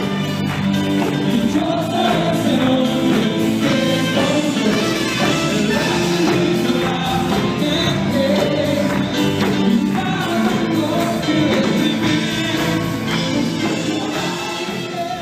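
Church worship music: a band with a group of singers performing an upbeat gospel-style praise song.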